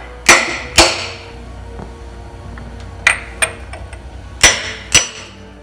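Six sharp hammer blows on metal, in three pairs about half a second apart, each with a short ring, tapping a part into a rebuilt Chevy 305 V8 engine block.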